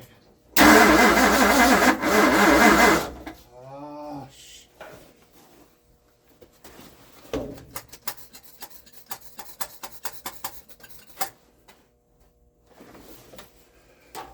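1960 Ford's 360 FE V8 with tri-power carburetors cranked by its starter for about two and a half seconds without catching: the engine will not fire and is leaking fuel. Later comes a run of quick light clicks.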